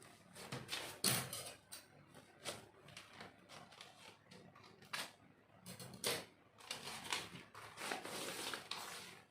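Packaging being handled and opened: irregular rustling, crinkling and clicks, with a longer stretch of continuous rustle near the end.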